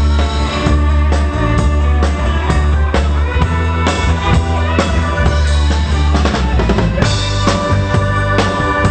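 A live band playing through a pop-rock number at full volume: drum kit with kick and snare hits over a heavy bass line and other instruments.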